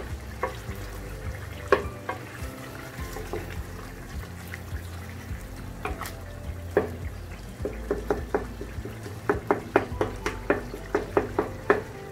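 Wooden spatula stirring chicken and tomatoes in oily gravy in a square nonstick pan, scraping and knocking against the pan. The knocks come quicker and closer together in the last few seconds, about three a second.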